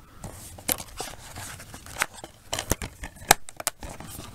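Plastic DVD cases and a paper booklet being handled: a string of sharp clicks and knocks as a case is closed and set down and the next one picked up, the loudest knock about three seconds in.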